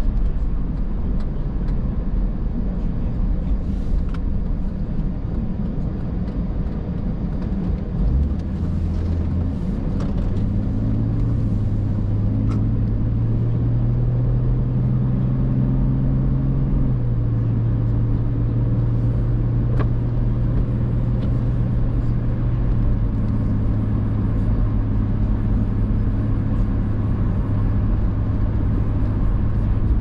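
A car's engine and tyres on a wet road, heard from inside the cabin as a steady rumble. A low engine hum rises a step in pitch about ten seconds in as the car picks up speed, then holds steady.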